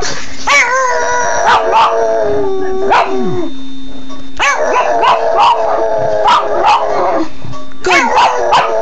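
Pug howling in two long, wavering notes that slowly fall in pitch, with a short break about halfway.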